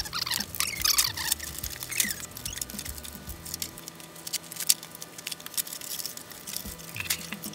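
Fast-forwarded unboxing of trading-card boxes: quick clicks and rustles of cardboard and plastic packaging being handled. In the first two seconds there are squeaky chirps, like sped-up voices.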